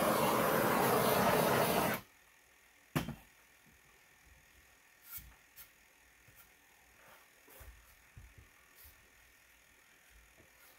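A loud, steady rushing hiss cuts off abruptly about two seconds in. A single sharp knock follows a second later, then only faint scattered taps and rubbing.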